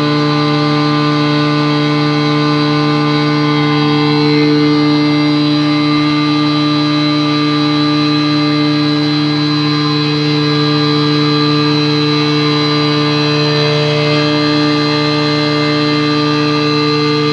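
Tohatsu V50 Rabbit 407 portable fire pump engine running steadily at a constant speed, its pitch even throughout, on a test run.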